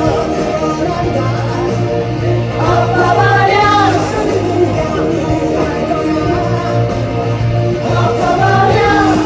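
Live band performing a rock song with a male lead vocal singing held, bending melody lines over a steady bass and full band accompaniment.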